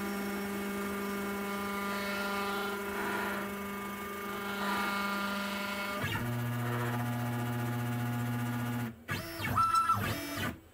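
Stepper motors of a Genmitsu PROVerXL 4030 desktop CNC router whining steadily as the probing routine slowly feeds the axes to find the corner of the stock. About six seconds in the whine drops to a lower tone. Near the end a few quicker moves rise and fall in pitch before the motors stop.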